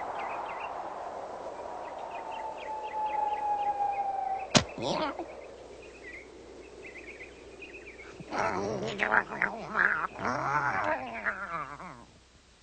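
Cartoon sound effects: a slowly falling whistle with light chirps over it, a sharp hit about four and a half seconds in, then a loud wavering, warbling sound over the last few seconds that stops abruptly.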